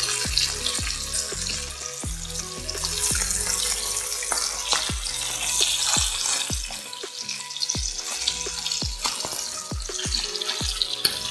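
Mutton chops sizzling in hot oil in a pan, a steady hiss with frequent sharp crackles and pops. A metal spoon works in the pan as the leftover masala is spooned over the meat.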